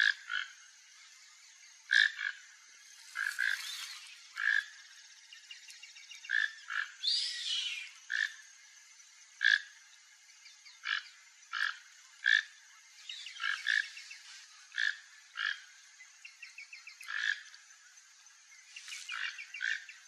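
Toco toucan calling: short croaks repeated about every second, many of them in quick pairs.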